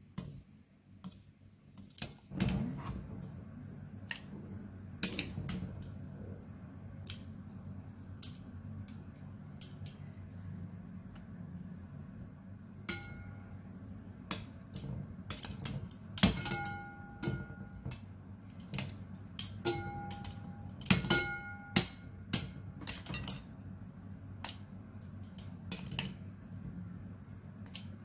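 Stainless steel kitchen tongs clicking and tapping against a glass bowl while bread rolls are turned in beaten egg and milk; several strikes leave a short pitched ring from the glass. A low steady hum runs underneath.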